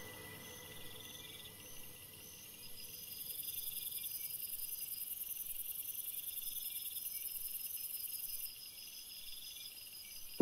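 Faint insect chirping in a steady repeating pattern, with a high hiss that comes in about three seconds in and stops a couple of seconds before the end.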